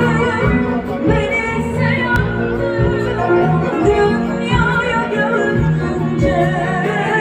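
A woman singing live with a wavering vibrato over band accompaniment, with a steady bass line underneath.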